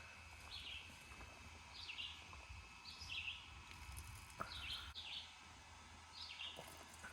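A small bird chirping faintly, short two-part chirps repeated about once a second, over a low steady rumble.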